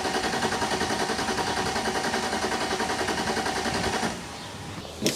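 BMW E46's M54 straight-six being cranked by the starter motor, turning over in a steady rapid rhythm without firing, until the cranking stops about four seconds in. The engine won't start after stalling; the owner suspects it has run out of fuel.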